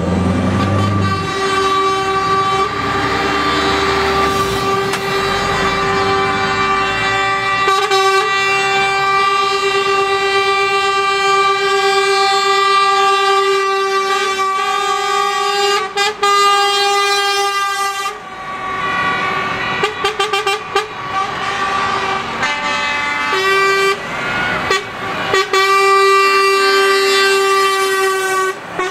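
Truck air horns sounding in long, steady held blasts, several pitches together. About two-thirds through they break into a run of short toots before one long blast sounds again. A truck engine rumbles low under the horns at the very start.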